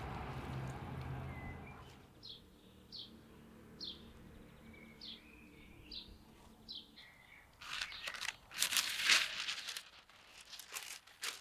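Hands rubbing crushed garlic over a lamb fat tail for the first couple of seconds, then a bird chirping about seven short times. From about three-quarters of the way in, parchment paper crinkles loudly as it is folded around the meat; this is the loudest sound.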